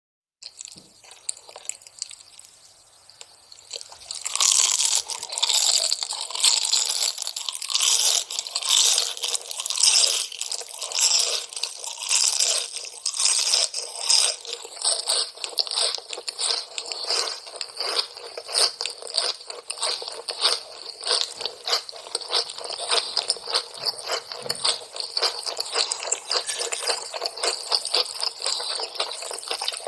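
Crisp food crunching and crackling, starting about four seconds in and going on densely, swelling roughly once a second.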